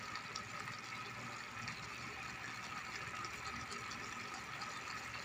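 Ash plantain curry simmering in an aluminium pot on the stove: a faint, steady hiss.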